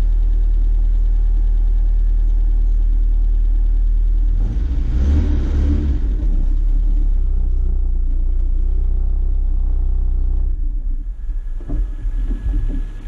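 Off-road 4x4's engine running at low speed, heard from inside the cab as a steady low drone. About four seconds in it swells for a couple of seconds, and near the end it drops lower and goes unsteady.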